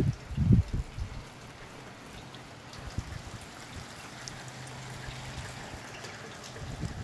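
Steady rain falling, an even hiss, with a couple of loud low bumps from wind gusting on the microphone in the first second.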